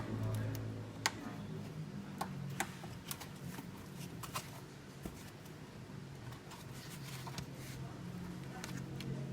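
Irregular light clicks and ticks of small hand tools and fingers working on a laptop's plastic case during a RAM upgrade.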